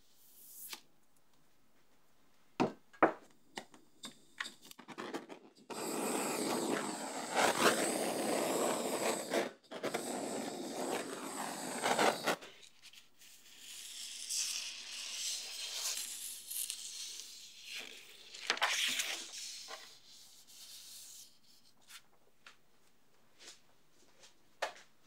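A stainless steel cake ring is slid off with a few sharp clicks and scrapes. Then a handheld can hisses steadily for about six seconds. Near the end comes the crinkling and tearing rustle of a cake collar being peeled from the side of a mousse cake.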